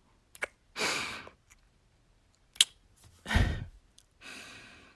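A woman's close-miked breathing: long sighing breaths, one of them heavy with a low rumble, and a single sharp kiss smack about two and a half seconds in.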